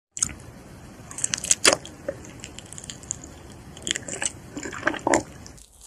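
Close-miked eating sounds: biting into and chewing a soft, powder-dusted chocolate mochi ice cream. There are many short, sharp mouth clicks and smacks, with the loudest bites nearly two seconds in and again about five seconds in.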